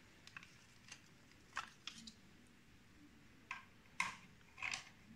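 Faint, scattered clicks and light knocks as the parts of a partly opened hand grinder motor are handled and its freshly oiled bearings are turned by hand; the motor is not running.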